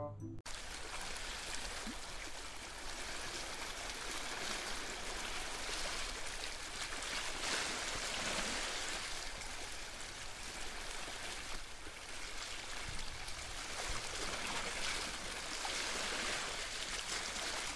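Steady rushing of running water that swells and eases every few seconds. Music cuts off at the very start.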